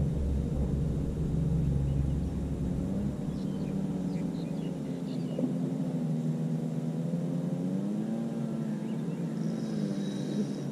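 An engine running steadily, its pitch drifting slowly up and down, with a low rumble in the first few seconds.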